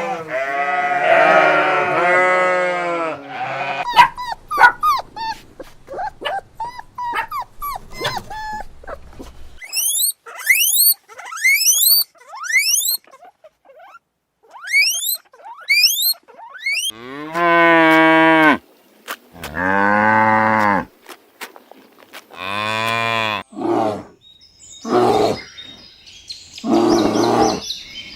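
A run of different animal calls, one after another. Long pitched calls open it, then short calls and clicks, then a string of quick rising high chirps. Several long, deep calls follow in the second half, resembling cattle lowing.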